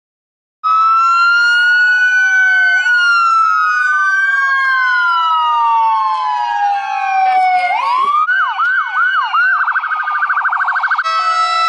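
Several emergency-vehicle sirens sounding at once, starting about half a second in as slow overlapping wails. About eight seconds in they switch to a yelp that quickens into a rapid warble, and near the end a steady blaring tone takes over.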